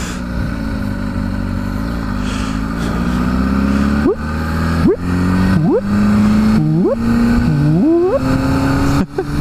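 Kawasaki sport bike's engine running at road speed, then blipped about five times in quick succession from about four seconds in, roughly once a second, each a short sharp rise in engine pitch. The blips are a habit the rider does every time.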